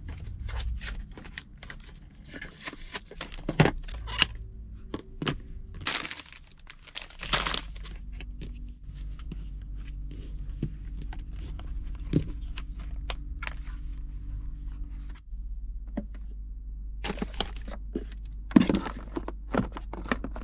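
Crinkling and rustling of plastic packaging with items being handled, broken by several sharp knocks and clicks. A low steady hum joins about a third of the way in and cuts out briefly near the middle.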